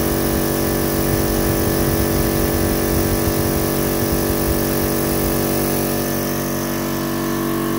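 100-litre, 14 CFM electric piston air compressor running steadily, working hard and unable to keep up with the air demand of a sandblast cabinet.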